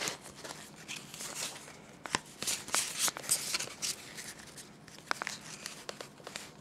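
Pokémon trading cards being slid out of a foil booster-pack wrapper and handled, with light crinkling from the foil and short clicks and taps of the card edges.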